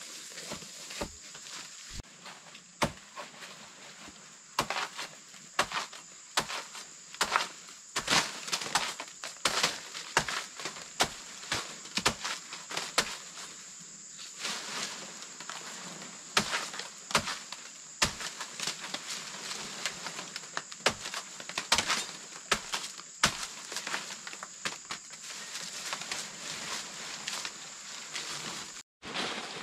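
A blade chopping into banana plant stalks and leaves: a long run of irregular sharp cuts and crunches, mixed with the rustle of dry banana leaves. A steady high insect buzz runs underneath.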